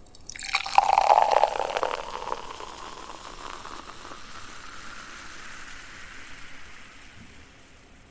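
Beer poured into a glass, loudest over the first two seconds, then a fainter fizzing of the foam whose pitch slowly rises as the glass fills, dying away near the end.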